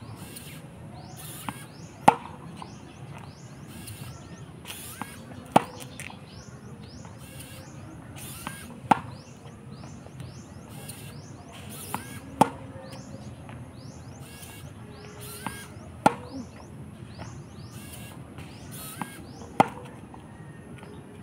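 A tennis ball struck with a racket six times, one sharp hit about every three and a half seconds, each hit preceded by a softer knock about half a second earlier as the next ball arrives from the ball machine.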